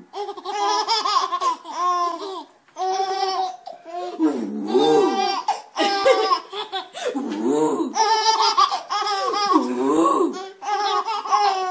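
Two babies laughing together in repeated short bouts of giggles, one after another with brief breaths between.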